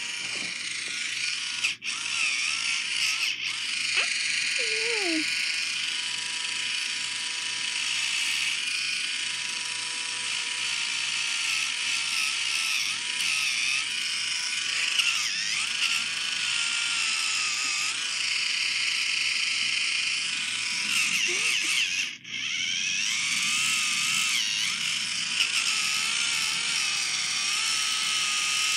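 Small handheld electric grooming tool, likely a foot file, running steadily with a motor buzz whose pitch wavers up and down.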